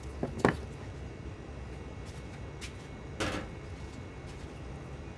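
Kitchen items being handled on a counter: two small knocks about half a second in, then a short scraping rustle about three seconds in.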